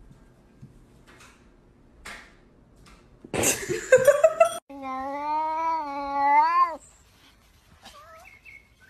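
Domestic cat giving a loud, harsh screech about three seconds in, followed straight away by one long, wavering yowl lasting about two seconds.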